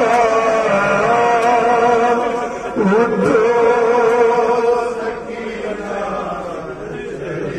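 A man's solo voice sings a noha, a Shia mourning lament, in long held notes that waver in pitch. The singing drops to a quieter level about five seconds in.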